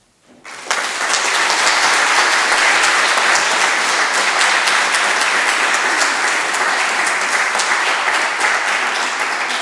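Audience applauding: many hands clapping in a dense, steady patter that starts abruptly just under a second in.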